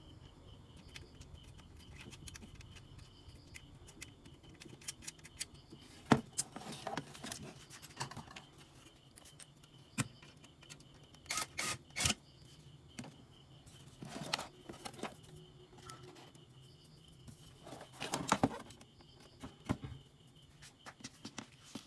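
Hands working a transformer into a metal inverter chassis: scattered clicks, knocks and short scraping rustles as the parts are pushed and fitted into place.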